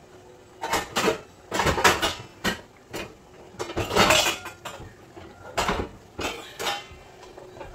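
Metal cookware being handled off-picture, clattering in an irregular series of knocks and clinks, loudest about two and four seconds in.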